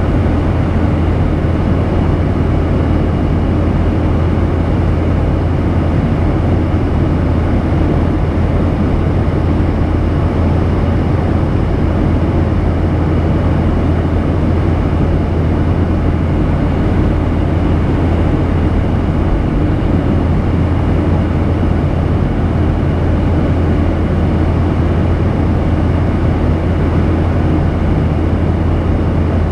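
Steady in-flight cabin noise of a Boeing 737-800, heard inside the cabin from a window seat over the wing: the drone of its CFM56-7B turbofan engines and the rush of air past the fuselage, with a strong low hum underneath.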